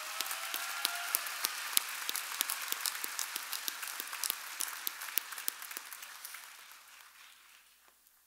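Audience applauding, a dense patter of many hands clapping that fades out over the last couple of seconds.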